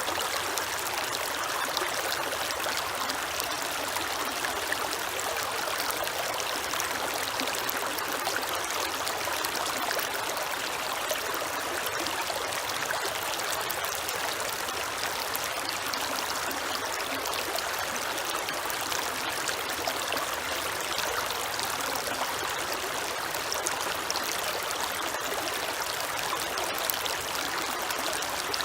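Creek water running and trickling steadily, an even rushing with no breaks.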